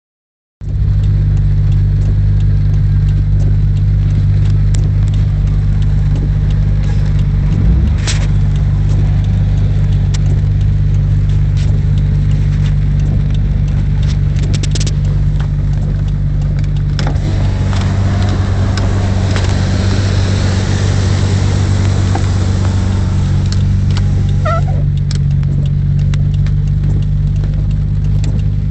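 Stationary car's engine idling with a steady low hum. About two-thirds of the way through, the rushing wash of another car driving through floodwater swells for several seconds and fades.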